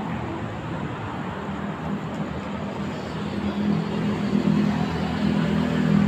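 A motor running with a steady low hum over background street noise, the hum growing louder from about halfway through.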